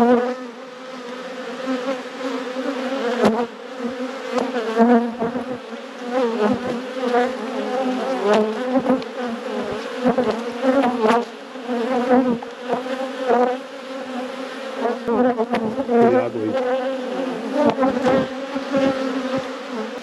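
Honeybees buzzing loudly over an opened hive, a steady drone with the pitch of single bees wavering as they fly close past. The colony is stirred up to the point of borderline robbing. A few light knocks sound now and then.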